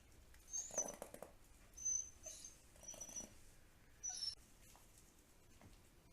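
A dog making short, very high-pitched squeaks, four of them about a second apart.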